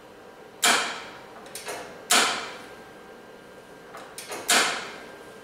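Three loud knocks with a short sliding rasp after each, about a second and a half apart, and lighter clicks between them: equipment on the X-ray table being moved and set.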